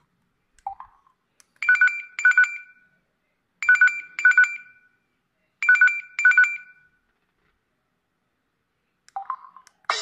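LG Tribe KS360 mobile phone playing its preset 'Alarm' ringtone through its small loudspeaker: three pairs of rapid, trilling electronic beeps, about two seconds apart, that then stop.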